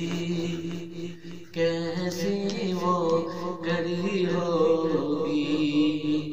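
A man's solo voice chanting a naat, an Urdu devotional poem, in long held, ornamented notes, with a short breath break about a second and a half in.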